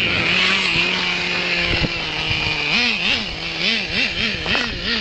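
Small nitro engine of a Traxxas T-Maxx RC monster truck running at a steady high pitch, then revving up and down in quick pulses, about five over the last two seconds, as the throttle is worked.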